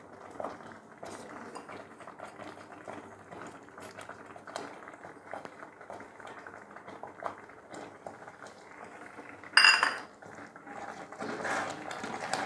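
Metal spoon stirring and scraping a thick rice-and-lentil pudding in a metal pot, a run of small scrapes and clinks. A little under ten seconds in comes one loud metallic clang that rings on briefly, with more clattering near the end.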